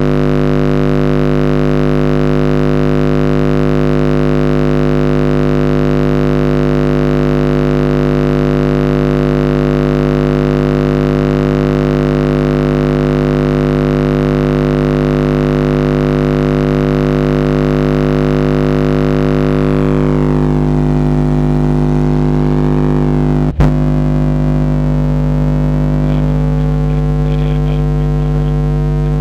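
Skar ZVX 15-inch subwoofer playing a 50 Hz test tone loud inside a car, a steady buzzy drone with strong overtones, driven at about 600 watts by a Skar SK-1200.1D amplifier at a 2-ohm load. The upper overtones waver in the last third, and a very short break comes about three-quarters of the way through.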